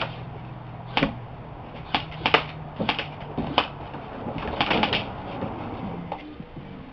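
Airsoft guns firing irregular single shots, a dozen or so sharp snaps, some in quick pairs, with a steady low hum underneath.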